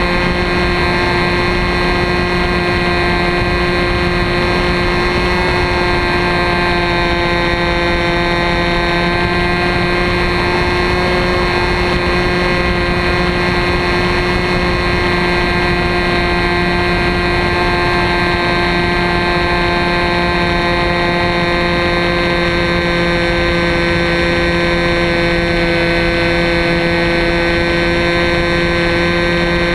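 Two-stroke glow engine of an RC Telemaster model plane running steadily in flight, heard from the camera mounted under the fuselage: a buzzing tone at a nearly constant pitch over a steady rushing noise.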